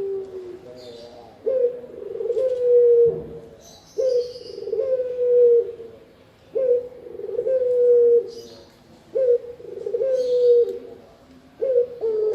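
Spotted dove (tekukur) cooing: a low phrase of a short note then a longer, slightly falling coo, repeated about every two and a half seconds, five times. Faint high chirps from small birds sound between the coos.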